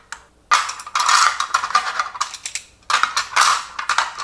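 Wooden chopsticks clattering against each other and a clear plastic holder as a handful is set in and jostled: a few light clicks, then two spells of rattling.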